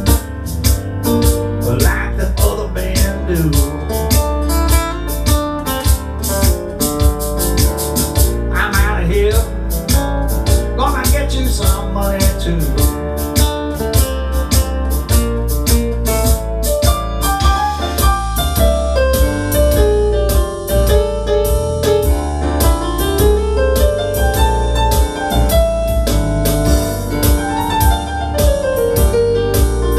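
Instrumental break with a steady beat and bass under a nylon-string acoustic guitar, with a piano-like keyboard line carrying the melody in the second half.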